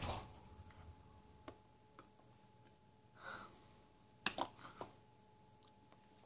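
Hand and clothing movement of a person signing: a soft rustle and swish, with a sharp tap about four seconds in followed by two lighter taps, over a faint steady hum.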